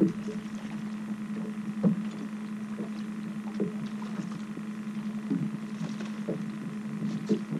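Boat motor running with a steady low hum as the boat trolls slowly, with a few light knocks scattered through.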